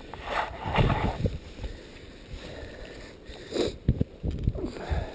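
Irregular crunching and rustling of deep snow, in a few uneven bursts about a second in, again past the middle and near the end.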